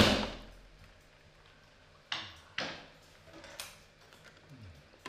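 A homemade wooden feeding contraption snapping its board up to fling a cream-topped cake slab: a loud double knock right at the start, then three more sharp knocks and slaps about two, two and a half and three and a half seconds in. A short falling low sound comes near the end.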